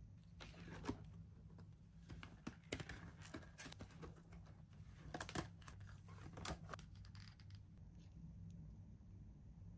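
Toy packaging handled and opened by hand: soft rustling and tearing with scattered clicks and taps, settling down for the last couple of seconds.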